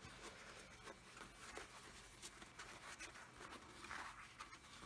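Faint scattered rustles and light taps as rolled, plastic-wrapped foam-core tubes are handled.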